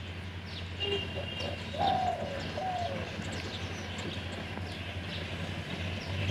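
Birds calling: two low, falling coos about two and three seconds in, over scattered short high chirps, with a steady low hum underneath.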